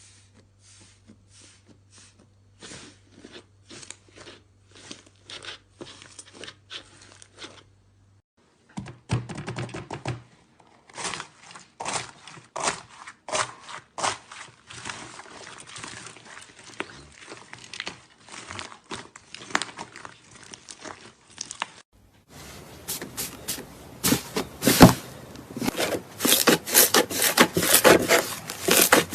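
Slime being squeezed and poked, giving a string of crackling, crunching clicks; the clicks grow louder and denser about twenty-two seconds in.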